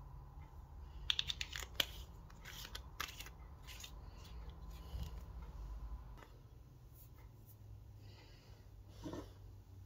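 A small glass glitter vial with a metal screw cap being handled and capped: a quick run of small clicks and scratchy scrapes about one to four seconds in.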